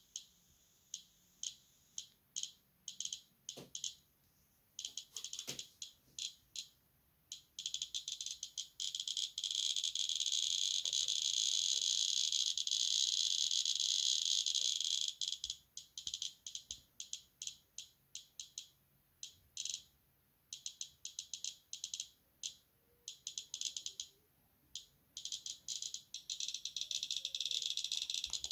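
Radiacode 101 radiation detector's speaker clicking once for each detected count: sparse, irregular clicks at background level, crowding into a fast, near-continuous high-pitched chatter when held against the compass's radium-painted dial. The stream thins back to single clicks partway through, then speeds up again near the end as the count rate rises once more.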